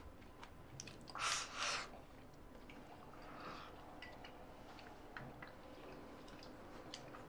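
Quiet eating at a dinner table: faint, scattered clicks of chopsticks against porcelain bowls, with a short soft noise a little over a second in.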